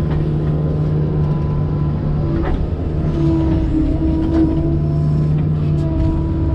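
Excavator's diesel engine running under load, its hydraulic whine cutting in and out and shifting pitch as the boom and bucket spread fill. Two light knocks, about two and a half and four and a half seconds in.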